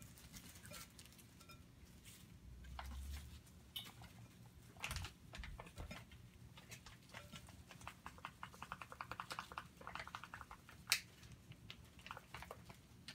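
Thin plastic bag crinkling and rustling as dry fish-fry breading mix is poured into it from its packet. There is a dense run of crackles near the end and one sharp tap about eleven seconds in.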